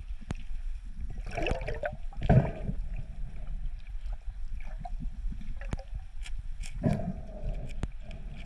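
Underwater sound of moving water around a submerged camera: a steady low rumble with a few louder swashes, the loudest about two and a half seconds in, and several sharp clicks.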